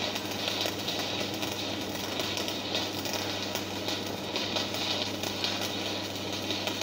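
Stick (shielded metal arc) welding arc crackling and sizzling steadily as a straight-line bead is run along a steel plate, with a steady low hum underneath.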